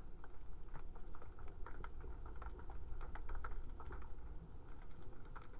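Faint underwater ambience: a steady low rumble with scattered soft clicks and bubbling.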